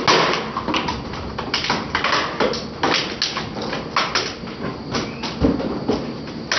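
Twin-shaft shredder's steel cutter discs crushing a plastic bottle of gel water beads: an irregular run of sharp plastic cracks and crunches, thinning out near the end as the last pieces go through.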